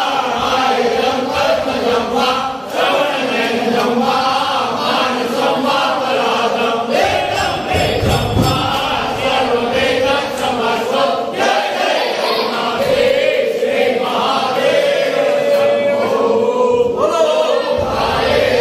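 A group of men and boys singing a Hindu aarti hymn to Shiva together, with hand claps keeping time.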